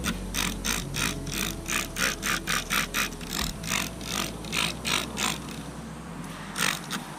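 Plastic trigger spray bottle squirting cleaner onto an aluminum boat hull in a rapid run of short hissy pumps, nearly four a second. The pumps pause briefly near the end, then two more follow.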